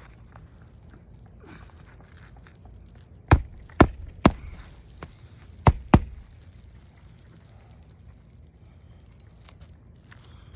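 Five sharp hammer strikes on an asphalt-shingle roof, three in quick succession and then two more about a second and a half later.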